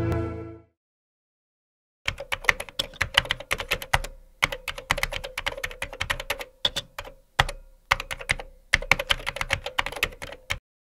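Rapid keystroke clicks of a keyboard typing sound effect, in runs broken by short pauses, starting about two seconds in and stopping just before the end, timed to a caption being typed out letter by letter. Music cuts off within the first second.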